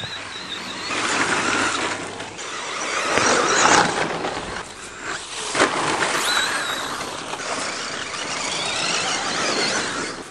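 Radio-controlled short-course truck driving on a dirt track: a high-pitched motor whine that rises and falls with the throttle, over the scrabble of its tyres on dirt, with a few louder swells as it passes.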